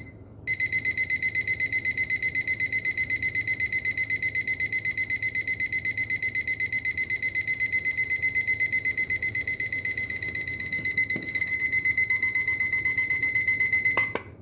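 Timex battery alarm clock's alarm sounding: a high electronic beep pulsing rapidly without a break. About 14 seconds in a click cuts it off.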